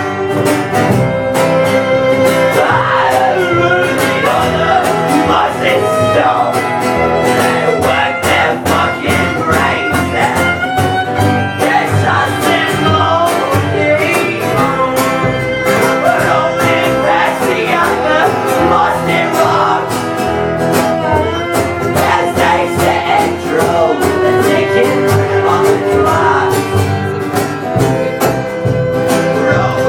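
Live band playing a song with guitars and a steady drum beat, an instrumental stretch between sung lines.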